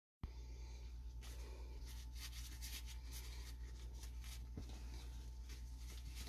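Faint steady electrical hum with a thin high tone, overlaid by soft irregular rubbing and scraping noises, typical of sewer inspection camera equipment and its handling.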